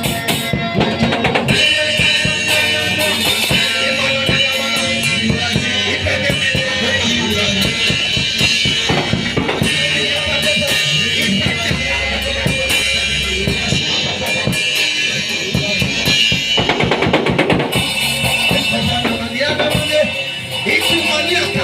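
Live worship band playing, with a drum kit's bass drum, snare and rimshots driving the beat and a quick drum roll about two-thirds of the way through.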